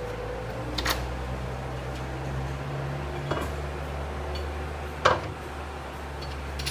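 Three sharp metallic clicks and clinks, the loudest about five seconds in, as a metal fender mounting plate and its bolts are handled and fitted by hand. A steady low hum runs underneath.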